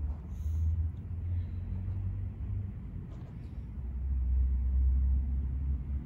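Low rumble that swells and fades, loudest near the end.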